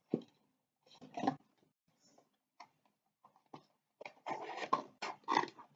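Handling noises from a blind-box toy package being worked open: scattered taps and clicks, then a denser stretch of rustling and crinkling near the end.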